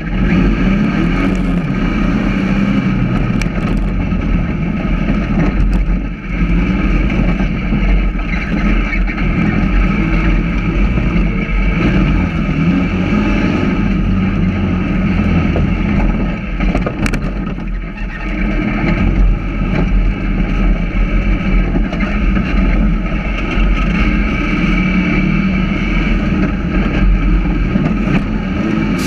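Sand rail's engine running hard at speed across the dunes, easing off briefly about six seconds in and again around seventeen seconds before pulling on steadily.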